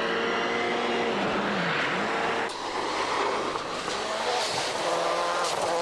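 Turbocharged four-cylinder engine of a 1997 World Rally Car running hard. Its pitch drops about two seconds in, then gives way to a rougher, noisier stretch, and it settles at steady revs near the end.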